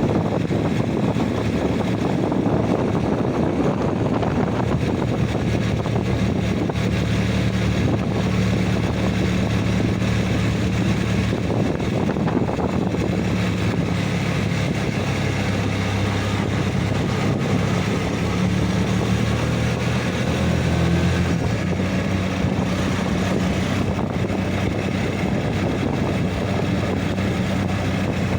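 An engine running steadily at an even speed while under way, with a constant rush of wind and motion noise over it.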